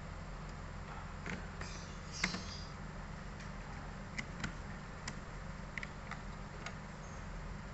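Scattered light clicks and taps from a laptop's bottom cover and screws being handled as the case is closed up, over a steady low hum.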